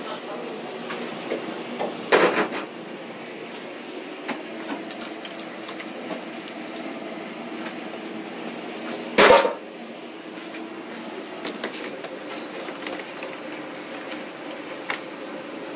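Steady restaurant background hum with scattered light clicks and two louder knocks, about two seconds in and about nine seconds in; the second knock is the loudest.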